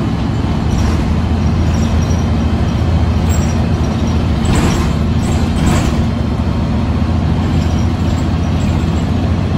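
Cabin noise inside a 2013 Karsan Avancity S Plus articulated city bus under way: a loud, steady low drone from the engine and running gear, with a brief noisier stretch about halfway through.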